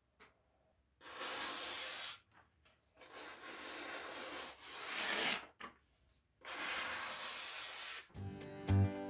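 Freshly sharpened Henckels chef's knife slicing down through a sheet of paper to test its edge: three slicing strokes, each a second or more long, the middle one the longest and growing louder. Music comes in near the end.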